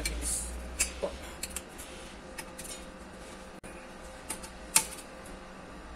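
Irregular metallic clicks and taps of a hand tool working on a bare engine block and cylinder head, with one sharper tap near the end.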